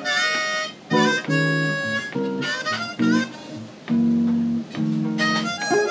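Live jazz duo of harmonica and guitar: the harmonica plays the melody in held notes and short phrases, some bent in pitch, over guitar chords.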